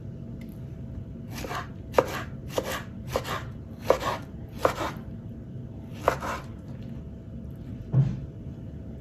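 Kitchen knife slicing a tomato on a wooden cutting board: about seven cuts, each a short slicing swish ending in a tap of the blade on the wood. A dull thump follows near the end.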